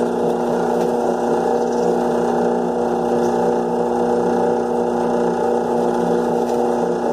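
Benchtop drill press running at a steady pitch, its motor hum holding even while a 5/32-inch bit drills pilot holes in a rough cedar picket.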